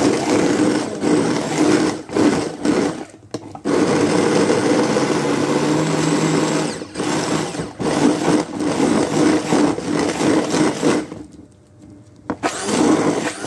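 Hand-held immersion (stick) blender running in a clear beaker, chopping chilies, shallots and garlic with a little water into a coarse paste. The motor is stopped and restarted in short pulses, with a longer pause of about a second near the end before it runs again.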